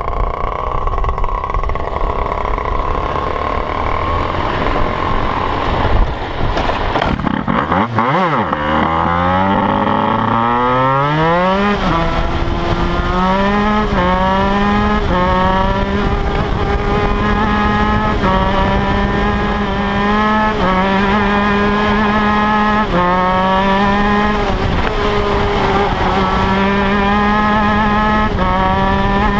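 Two-stroke shifter kart engine, heard close up from on board. About eight seconds in, its revs climb steeply as the kart pulls away. It then runs on at speed, its pitch stepping up and dropping back every second or two with the throttle and gear changes.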